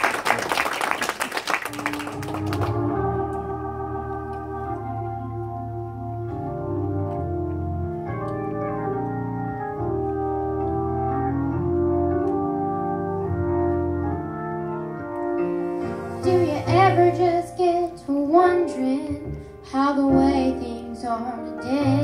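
Organ playing sustained chords as the introduction to a gospel song, with voices beginning to sing over it about sixteen seconds in. A short burst of noise comes right at the start.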